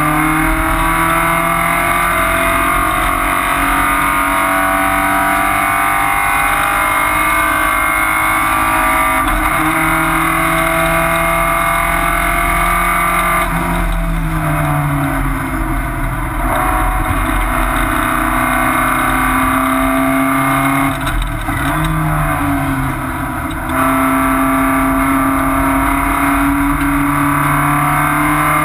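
Porsche 944 race car's four-cylinder engine heard from inside the cabin, under load on track, its note climbing slowly in pitch through a long pull. The note falls away about halfway through, drops again briefly and more quietly about three quarters of the way through, then pulls hard again.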